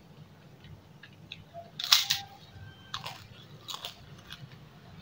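A crispy cracker crunching, loudest about two seconds in, followed by several smaller crunches.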